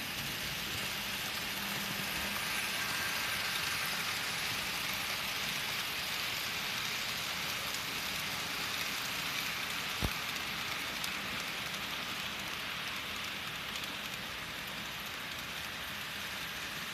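Model trains rolling along the layout track, a steady hissing rumble of wheels on rails that swells as they pass close and eases off toward the end. A single sharp click about ten seconds in.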